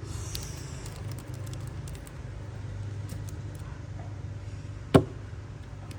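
Zippo lighter being handled: a few light clicks and a short rustle in the first second, then one loud sharp metallic click about five seconds in.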